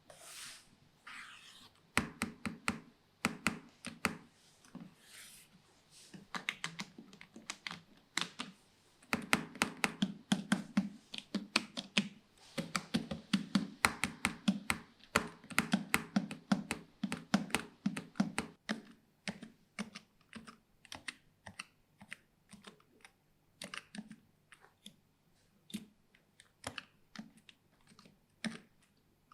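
Typing on a Razer Huntsman V2 full-size keyboard with linear optical red switches and doubleshot PBT keycaps. Fast runs of keystrokes, each a click with a low thud, give way to sparser, lighter taps in the last third.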